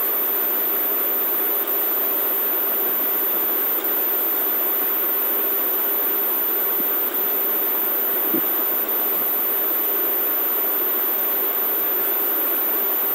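Steady background hiss with a constant low hum underneath. There is a faint tick about eight seconds in.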